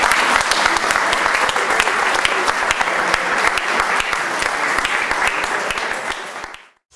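A crowd applauding steadily, a dense patter of many clapping hands, fading out shortly before the end.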